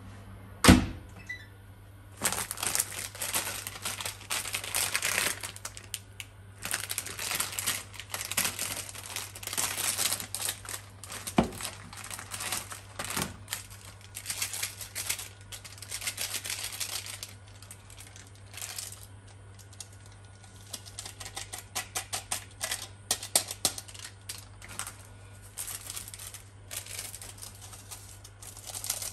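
Plastic instant-noodle packet crinkling and tearing as it is opened and handled, in dense crackly runs. A small seasoning sachet is torn open in the second half. Just under a second in, a glass mug knocks once as it is set down on the counter.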